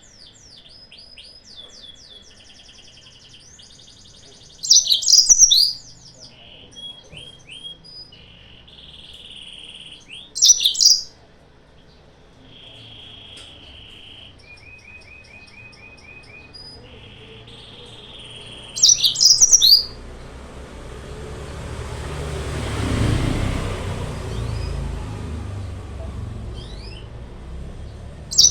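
Yellow-fronted canary (Mozambique canary) song used as a lure recording: loud, short bursts of rapid high notes about every six to eight seconds, with softer chirps and trills between them. In the second half a low rumbling noise swells and fades.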